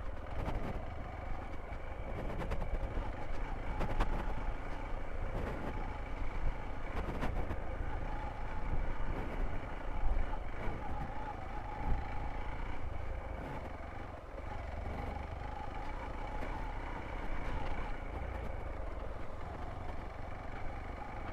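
Hero XPulse 200 single-cylinder motorcycle running while being ridden, with wind rumbling on the microphone and scattered short knocks.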